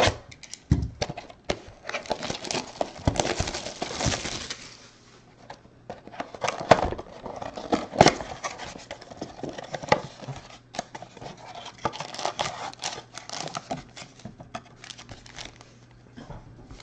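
Clear plastic shrink wrap crinkling and tearing as it is stripped off a cardboard trading-card blaster box, densest in the first few seconds. Then come scattered clicks and rustles as the box is opened and the foil-wrapped card packs are slid out.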